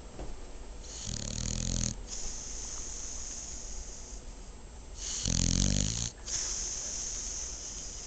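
Sleeping dog snoring: two loud rasping snores about four seconds apart, each about a second long and each followed by a longer hissing breath.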